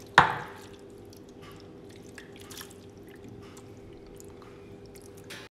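Wet, marinated shawarma meat plopping into a baking dish with one loud slap just after the start, then squelching and small clicks as the pieces are pushed and spread around.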